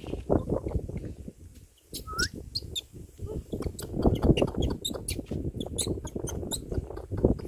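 Short, high chirps and squeaks from an infant crab-eating macaque, with one rising squeal about two seconds in, over uneven low rumbling noise.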